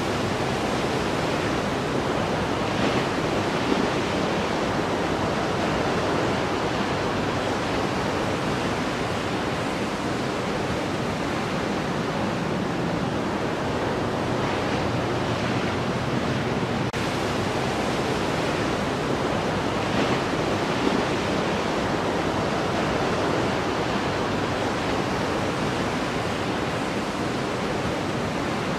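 Breaking ocean surf and churning whitewater, a steady dense wash of noise that never lets up.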